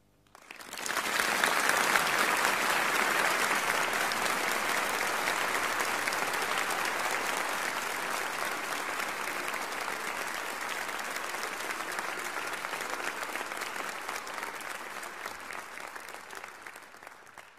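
Live concert audience applauding, breaking out about a second in as the final chord dies away, then slowly tapering and fading out near the end.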